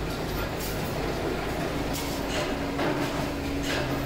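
Water splashing and dripping as a chrome-finished metal mudguard is wiped and rinsed over a tank, in a few short swishes, over a steady workshop machine drone; a low steady hum comes in about two seconds in.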